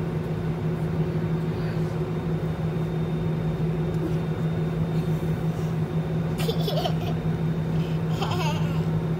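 Steady low hum of an airliner cabin waiting for takeoff, with a young girl giggling briefly twice in the second half.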